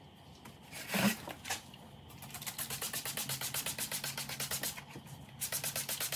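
Plastic trigger spray bottle squeezed over and over in quick succession, misting wood conditioner onto a quilted cedar veneer, in two runs of spritzes with a short pause between. A single knock about a second in.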